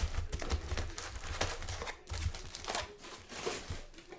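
Plastic wrapping crinkling and tearing in irregular bursts as sports card packaging is handled and opened, with soft knocks of handling underneath.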